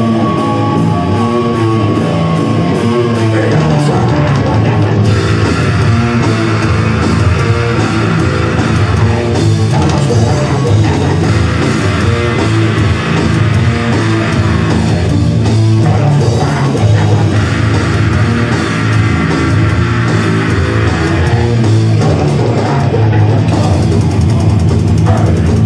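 Heavy metal band playing live at full volume: distorted electric guitars over a drum kit, with no singing. The sound thickens about five seconds in and stays dense throughout.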